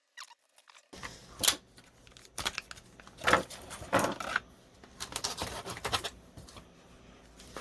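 Scattered clicks, taps and short scrapes of hands handling laptop parts while a keyboard and its ribbon-cable connector are worked loose, starting after about a second of near silence.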